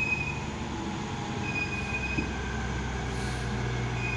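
A lorry's brakes squealing in short high-pitched squeals three times while it brakes downhill, over the low steady hum of its engine, which grows louder about halfway through.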